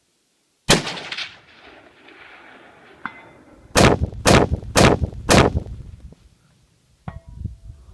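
Gunshots: one shot with a long echoing tail, then four quick shots about half a second apart. Short metallic rings come between them and near the end.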